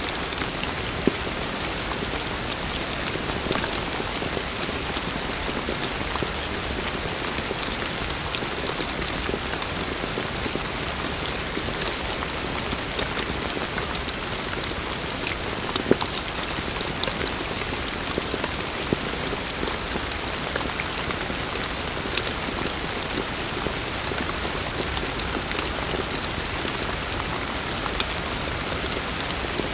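Heavy rain falling steadily: a dense, even hiss with scattered individual drop hits, a few of them louder.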